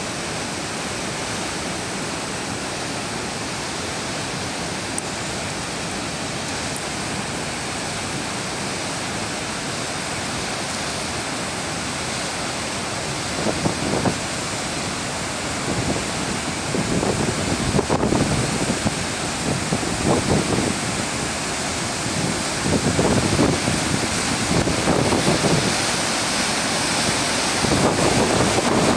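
A rocky river waterfall in spate, its white water rushing steadily. From about halfway through, gusts of wind buffet the microphone now and then.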